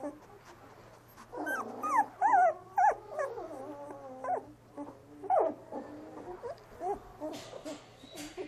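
Young Doberman puppies whimpering and squealing: a string of loud cries with wavering, sliding pitch from about a second and a half in, then shorter, softer whimpers.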